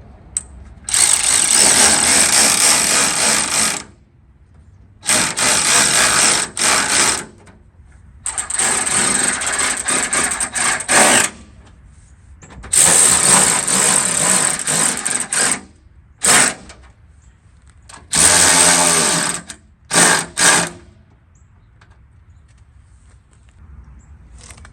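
Power drill driving in fender bolts, run in about seven bursts of one to three seconds each with short pauses between, the last two very brief.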